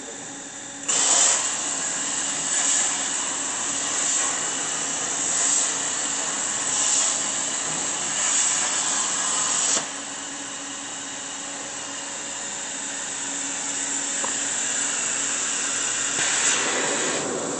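Hypertherm HT40C plasma torch on a CNC cutting table striking its arc about a second in and cutting with a loud hiss that swells about every second and a half. The arc cuts off sharply near ten seconds in, leaving a quieter, steady hiss.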